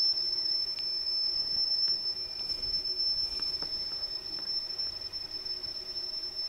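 Atari cassette data recording playing back on a tape deck, heard faintly through headphones: one steady high-pitched tone, the tape's lead-in carrier tone before the data, with a few faint ticks.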